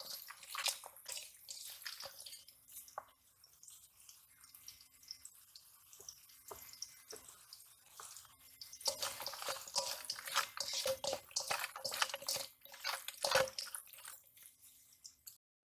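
Wet squelching and slapping of a hand mixing small shing (stinging catfish) in a yellow spice paste in a stainless steel bowl. The squelching is sparser in the middle and busiest from about nine seconds in, then stops abruptly near the end.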